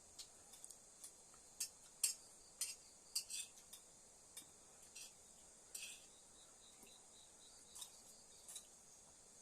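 A steady high-pitched chorus of night insects such as crickets, with irregular light clinks and taps of cutlery against dishes. The clinks come in a quick cluster about two to three seconds in and again near six seconds.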